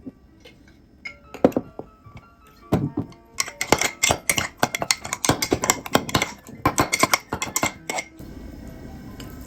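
Kitchen utensils clinking and scraping against dishes, a few separate knocks at first, then a fast run of clicks and scrapes for about four seconds, under background music.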